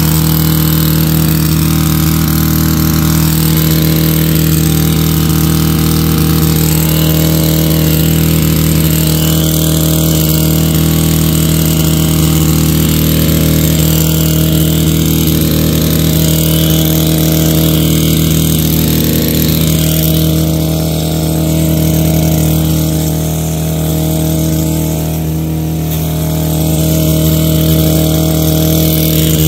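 Stihl KM 131R KombiMotor's small 4-MIX engine running steadily at an even pitch, driving a power scythe attachment. The sound eases off slightly for a few seconds about three-quarters of the way through, then comes back up.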